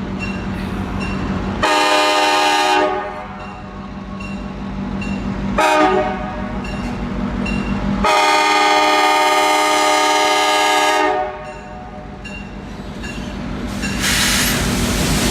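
Diesel locomotive horn on the Nickel Plate Express excursion train sounding three times: a long blast, a short one, then a long one held about three seconds, over the steady running of the engine. Near the end comes a loud rush of noise as the train draws near.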